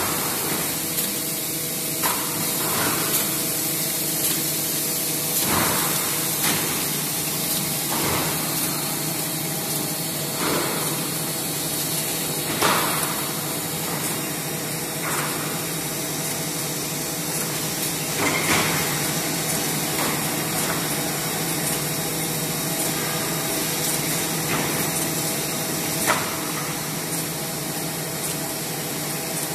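Spiral paper-core winding machine running: a steady mechanical hum and hiss, with irregular short knocks every second or two.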